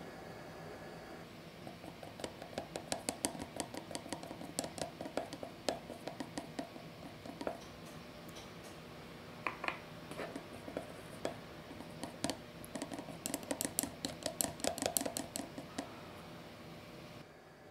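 Chopsticks beating an egg yolk in a small glass bowl, a fast run of light clicks against the glass. The clicking breaks off in the middle as water is added, with a few single taps, then a second fast run follows.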